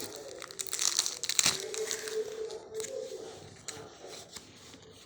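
Crinkly plastic wrapping of Pokémon card packaging being crumpled and torn open, the crackling busiest in the first two seconds and thinning out after.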